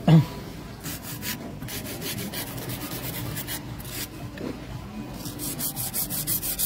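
Hand nail file rasping back and forth over an acrylic powder nail extension, shaping the nail, in groups of quick strokes that come fastest near the end. A short dull thump right at the start.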